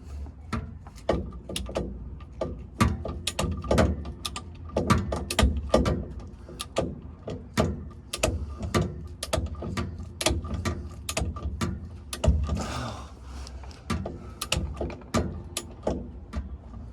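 Ratchet wrench clicking in repeated back-strokes, a few clicks a second, as the driveshaft's 12 mm 12-point flange bolts are run in and tightened.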